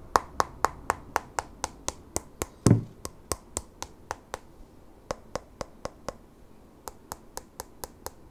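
Sharp, evenly spaced clicks, about four a second, in three runs with short pauses between, and one duller, heavier thump about two and a half seconds in.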